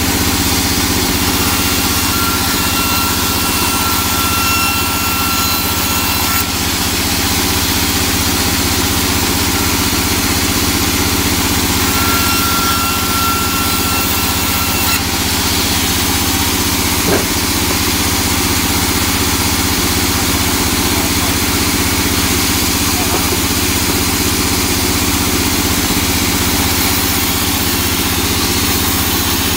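Vertical band saw running steadily while teak boards are fed through its blade and ripped lengthwise. A thin high whine comes in twice, for a few seconds each time.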